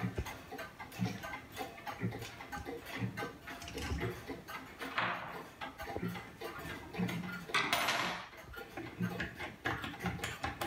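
Small clicks, clinks and rattles as a wooden-plated Black Forest clock movement is turned over and handled, over the ticking of pendulum wall clocks at roughly one knock a second. Two short rustling noises come about halfway and about three-quarters of the way through.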